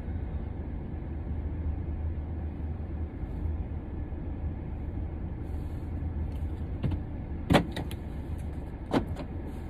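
Inside a car's cabin, the engine runs with a steady low drone. Near the end come a few sharp clicks and knocks.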